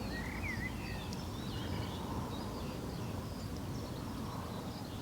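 Small birds chirping and twittering, short calls and quick rising and falling notes scattered through, over a steady low rumble of outdoor background noise.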